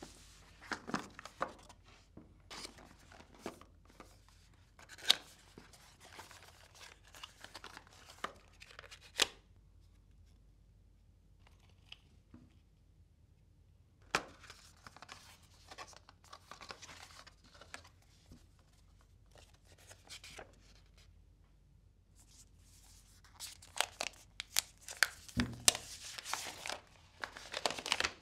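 Unboxing handling sounds from a tablet's cardboard box and packaging: paper and plastic wrap rustling and tearing, with sharp clicks and taps of the box and tablet being handled. There is a quiet pause about a third of the way in, and the handling gets busier near the end.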